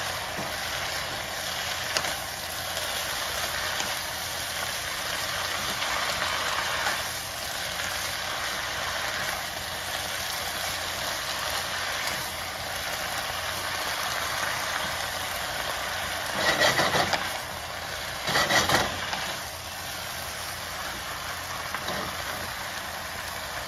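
A stir-fry of vegetables and grouse sizzling steadily in a hot pan on high heat while it is tossed with a wooden spatula. About two-thirds of the way through come two short, louder bursts of the spatula scraping and knocking against the pan.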